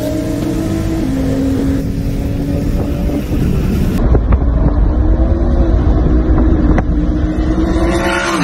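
Car engine running at a steady highway cruise with road and wind noise, heard from inside the cabin; the engine note dips slightly about a second in, and after a cut about 4 s in a deeper low rumble takes over with a couple of brief clicks.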